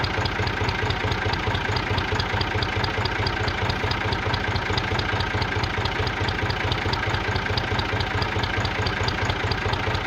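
Tractor engine idling steadily, a low pulsing rumble with a light regular tick about five times a second.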